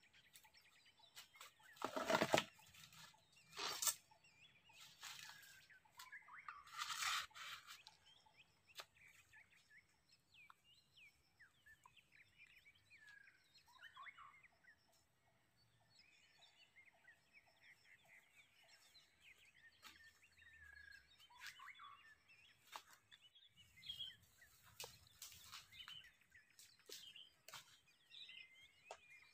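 Faint bird calls, with many short chirps and whistles. About two, four and seven seconds in there are three louder sharp rustles or knocks.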